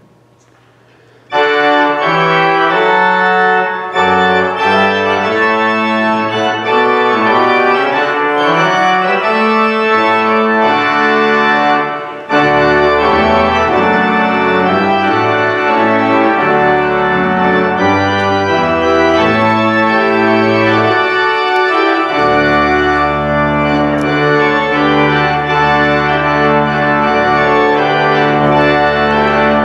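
Church pipe organ playing the postlude that closes the service. Full sustained chords enter suddenly about a second in, and in the last third deep pedal notes are held beneath them.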